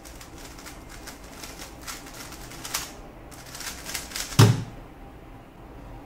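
A MoYu WeiLong WR M 2021 Maglev magnetic 3x3 speedcube being turned at speed, a dense run of fast clicking turns that pauses briefly about three seconds in. A single heavy thump comes a little over four seconds in.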